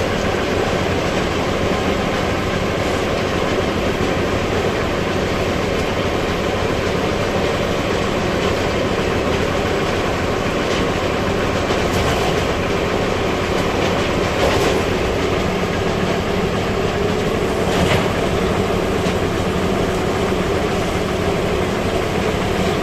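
Machinery running steadily with a low mechanical rumble, broken by a few sharp clanks around the middle and later on.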